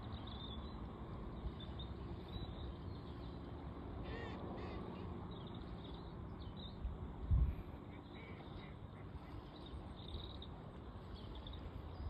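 Faint open-air background: a steady low rumble on the microphone with scattered distant bird calls, the clearest about four seconds in, and a dull low bump about seven seconds in.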